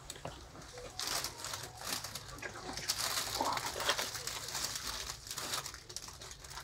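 Cellophane wrapping on a flower bouquet crinkling and rustling as it is laid down, a dense crackle of small clicks that starts about a second in and dies away near the end.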